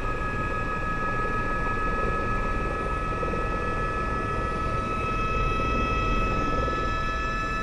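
Helicopter engine and rotor running, heard inside the cabin: a steady high turbine whine over a low rumble, growing slightly louder about five seconds in.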